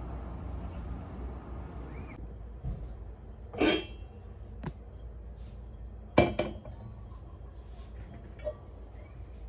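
A steady background hum for about two seconds, then three sharp clinks of tableware, a couple of seconds apart.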